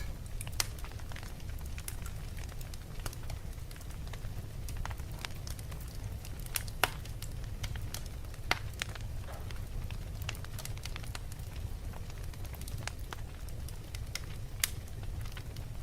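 Wood fire burning in a fireplace: a steady low rumble of flame with irregular sharp crackles and pops from the burning logs, a few of them much louder than the rest.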